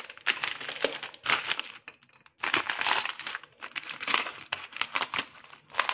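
Paper microwave popcorn bag crinkling and rustling as it is handled and unfolded, in irregular crackles with a brief pause about two seconds in.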